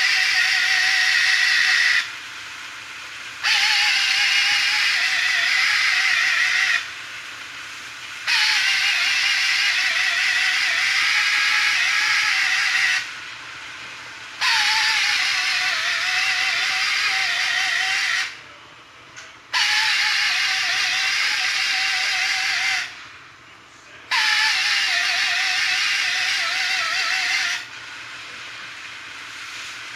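Repeated bursts of loud hissing, six times, each about four to five seconds long with short pauses between. Each burst carries a faint wavering whistle that starts a little higher and dips.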